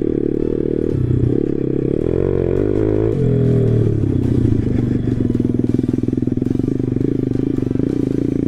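The single-cylinder four-stroke engine of an MRF 140 RC-Z pit bike, running under way over rough grass. It revs up about two seconds in, drops back about a second later, then runs steadily at lower revs. The engine is in its run-in period.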